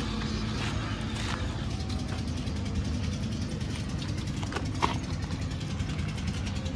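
A motor vehicle's engine running steadily with a low hum, with a couple of short clicks, the sharpest about five seconds in.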